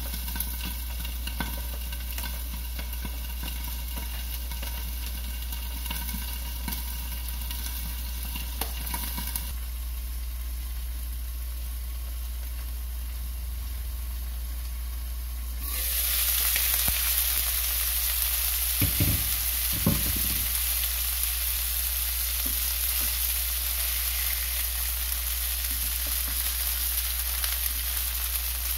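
File fish pieces frying in oil in a non-stick pan, sizzling steadily. The sizzle is muffled under a glass lid, then turns louder and brighter about halfway through as the lid comes off. A couple of knocks follow soon after, over a steady low hum.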